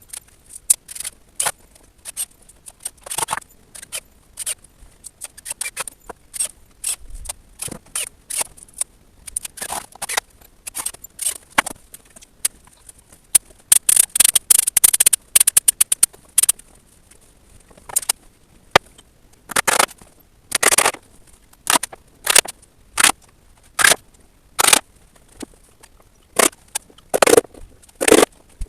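Irregular short scrapes, clicks and knocks of timber being handled and worked, with a quick run of rapid strokes about halfway through.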